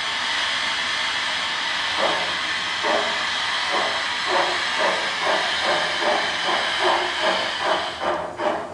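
Model class 45 steam locomotive's sound system giving a steady steam hiss, then from about two seconds in a chuffing exhaust beat that speeds up from about one chuff a second to about two, as the locomotive pulls away.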